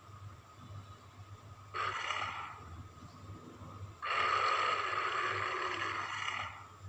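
Godzilla roar sound effect, 1992 version: a short roar about two seconds in, then a longer roar lasting about two and a half seconds.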